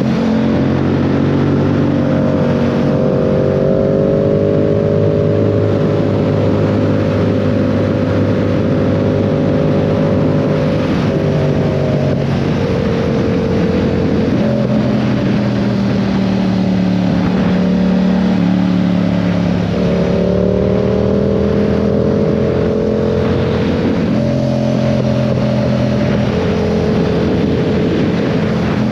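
2022 Yamaha R7's 689 cc parallel-twin engine running under load, its pitch rising and falling with the throttle and changing abruptly several times, over a steady rushing noise.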